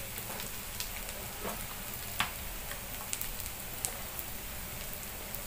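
Chopped onion and crushed peanuts frying in oil in a steel frying pan: a steady sizzle with a few scattered pops and crackles.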